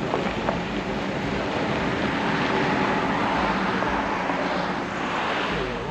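A vehicle driving past, its engine and tyre noise swelling to a peak about three seconds in and fading away near the end.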